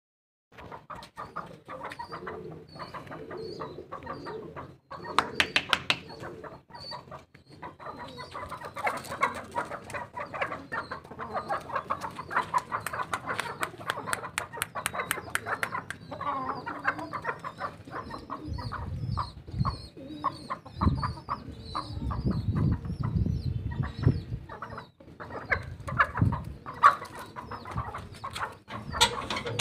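Aseel chickens clucking and calling in short notes, with a loud run of sharp clicks about five seconds in.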